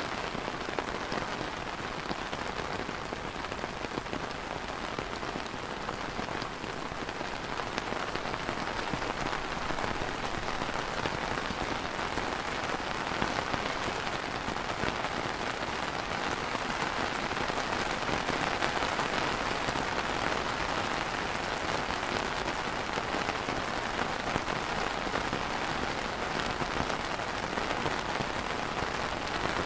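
Steady light rain falling on a clear umbrella canopy, a dense, even wash of drops, growing a little louder about a third of the way through.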